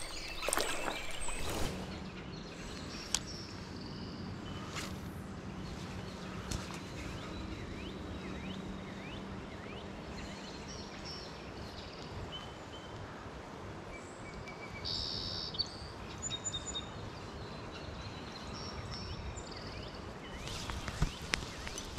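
Streamside ambience: a steady hiss of running creek water with a few short bird chirps. There are brief knocks near the start and near the end.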